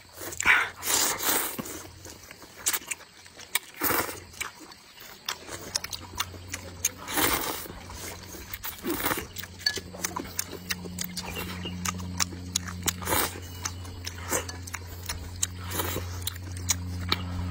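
Close-up eating noises: noodles slurped loudly from a bowl of chili broth in several long slurps, with chewing, lip smacks and chopsticks clicking against the bowl. A low steady hum comes in partway through and grows louder.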